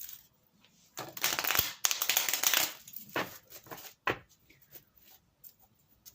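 A deck of Osho Zen Tarot cards being shuffled by hand: a dense rustling shuffle of about two seconds starting about a second in, followed by a few separate sharp card taps and snaps.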